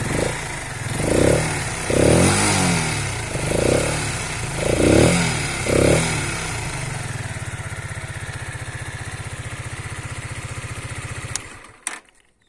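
Keeway K-Light 125's single-cylinder, air-cooled engine idling and revved with about six quick throttle blips in the first six seconds. It then settles back to a steady idle and is switched off near the end, stopping with a click.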